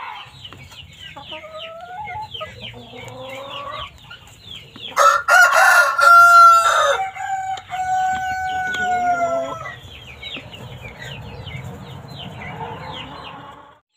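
Chinese Silkie rooster crowing once, starting about five seconds in and holding one long steady note for some four seconds, with short clucks from the flock before and after.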